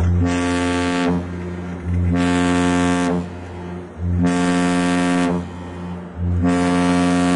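A warship's horn sounding repeated short blasts, each about a second long and roughly two seconds apart, four in all, as a warning to fast attack boats closing at close range.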